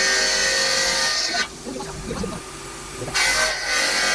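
CNC bridge saw's blade cutting a stone countertop slab: a steady, loud high hiss with a whine. About a second and a half in, the cutting noise drops away for a second and a half, leaving a quieter hum, then comes back.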